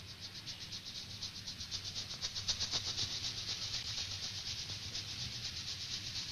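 Rhythmic hissing percussion from a film score, pulsing evenly about seven times a second over a faint low hum.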